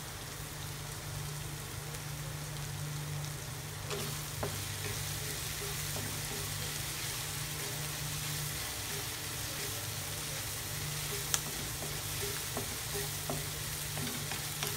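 Ground beef and tomato sizzling in a nonstick wok on a gas burner. From about four seconds in, a wooden spatula stirs it, scraping and tapping against the pan, over a steady low hum.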